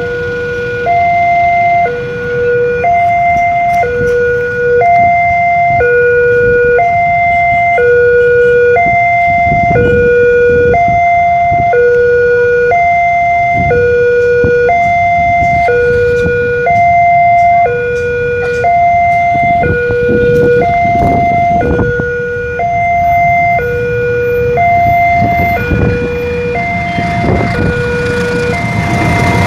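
Electronic two-tone warning alarm of a railway level crossing, switching back and forth between a lower and a higher tone about once a second, signalling that a train is approaching while the barriers are down. Low road-traffic rumble runs underneath.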